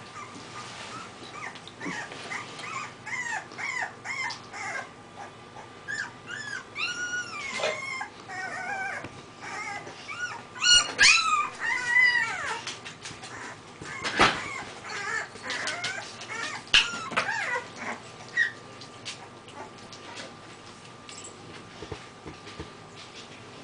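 Bullmastiff puppies whimpering and squeaking in many short, high calls that rise and fall, loudest about eleven seconds in and dying away after about eighteen seconds. There is a sharp knock near the middle.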